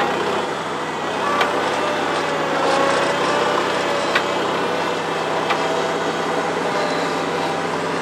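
New Holland L425 skid steer's four-cylinder Wisconsin engine running under load while the machine drives and scrapes dirt, with a whine that slowly rises and falls in pitch. Three short, sharp clanks come at about a second and a half, four seconds and five and a half seconds in.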